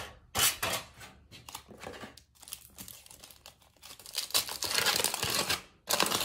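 Aluminium foil crinkling as it is handled and peeled open by hand: a short loud crinkle near the start, quieter scattered crackles, then a longer stretch of crinkling from about four seconds in.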